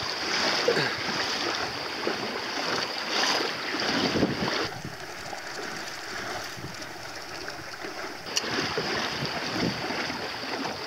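Water splashing and rushing along the hull of a small sailboat under way, with wind buffeting the microphone. The rush drops quieter for a few seconds mid-way, then picks up again.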